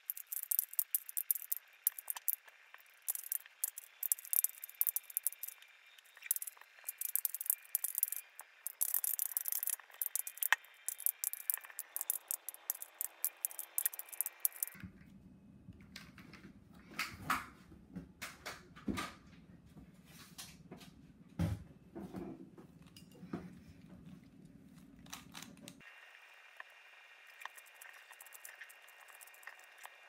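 Plastic twisty puzzles being turned by hand: rapid clicking and rattling of pieces snapping through their turns. In the middle stretch a low steady hum runs under sparser, sharper clicks, then stops.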